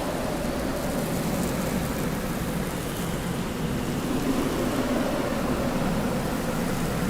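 Desert wind blowing steadily, a continuous low rush with a faint moaning whistle that slowly rises and falls in pitch.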